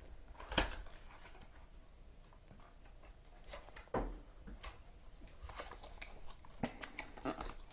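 A trading-card box and its packs being handled on a table: two sharp knocks, one about half a second in and one about four seconds in, with light clicks and rustling of cardboard and wrappers.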